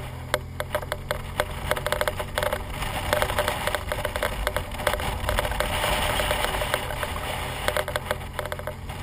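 BMW R1200GS boxer-twin engine running steadily as the motorcycle rides along, with many sharp clicks and ticks throughout and a rush of wind noise that swells through the middle.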